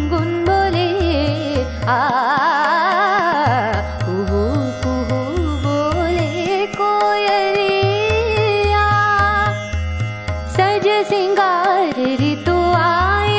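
A woman singing a raga-based Hindi film song in classical style, with quick ornamented runs, over a steady drone and a repeating tabla beat.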